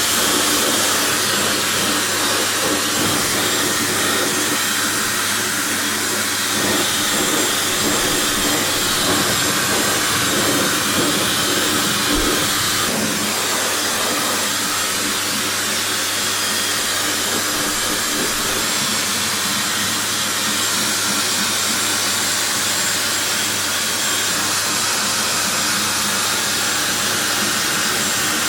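Dyson Supersonic hair dryer blowing steadily on a dog's coat: a loud, even rush of air with a faint high steady tone over it.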